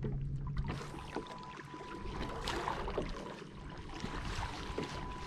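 Water splashing and lapping against a kayak hull, an irregular watery noise with small ticks, joined about a second in by a faint steady high whine.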